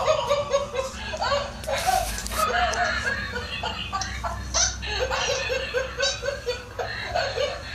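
Toy monkey laughing: repeated runs of quick, evenly spaced 'ha-ha-ha' laughs.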